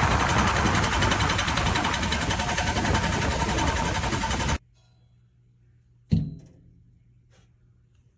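HVAC blower running loudly, a rushing sound with a steady whine, making the odd twangy noise that the owner suspects comes from the blower. It cuts off suddenly about four and a half seconds in, leaving a low hum, then a single knock.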